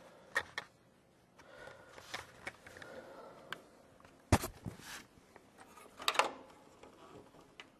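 Handling sounds of a graphics card being worked into a computer case: scattered clicks and faint scraping, a sharp knock about four seconds in and a short clatter around six seconds, as the card catches on something and won't seat.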